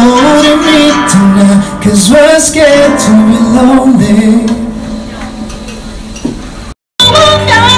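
Male vocalist singing long, sliding notes into a microphone over a strummed acoustic guitar, fading down over the last seconds; after a short cut a different song starts with steady low accompaniment.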